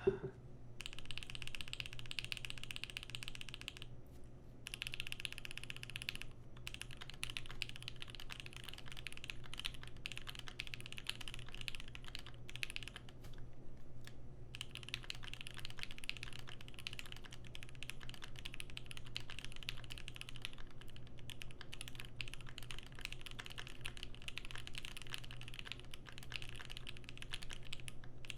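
Fast typing on a Keychron Q1 aluminium-plate mechanical keyboard with lubed Pinoko switches and GMK keycaps, its case stuffed with Poly-Fil, as a typing sound test. The clacking runs almost continuously with a few short pauses.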